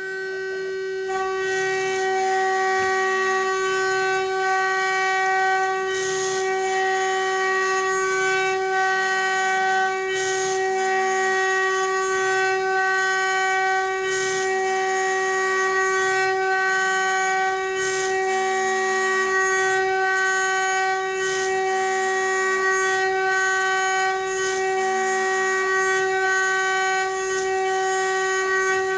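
CNC milling spindle running at a constant speed with a steady high whine while it machines a part. Every three to four seconds comes a brief rush of noise.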